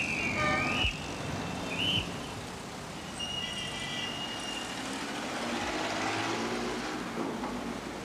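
A traffic policeman's whistle: a warbling trill at the start, a short trill about two seconds in, then a longer steady blast about three seconds in. Street traffic and vehicle engines run underneath.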